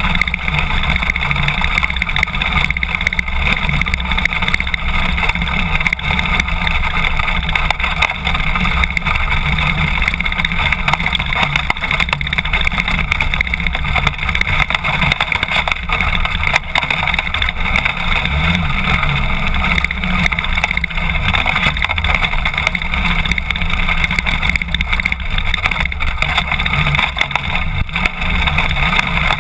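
BMW F800GS motorcycle's parallel-twin engine running steadily while riding on a gravel track.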